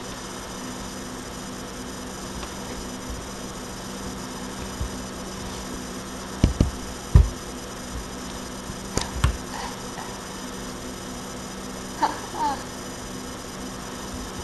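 Steady hiss and electrical hum from a low-quality webcam microphone, with a few dull knocks a little over halfway through.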